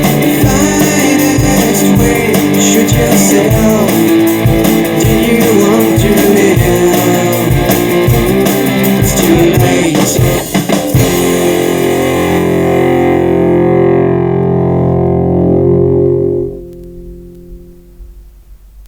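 Rock band's instrumental ending: electric guitar and drums play on until about eleven seconds in, then a final chord is held and rings out, cut off sharply a few seconds later and fading away.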